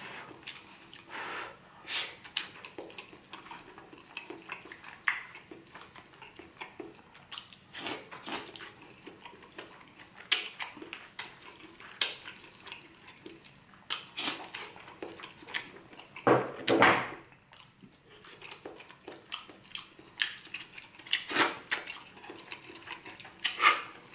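Close-miked eating sounds: a person chewing seafood paella with scattered short clicks and snaps, and a utensil now and then clinking on a ceramic plate. About two-thirds of the way through there is a louder noise lasting about a second.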